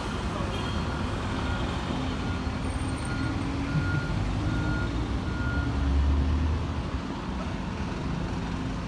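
A single-decker bus's diesel engine pulls away and turns the corner close by, its low rumble loudest about six seconds in. Over it, a short high beep repeats about every 0.7 s for the first six seconds.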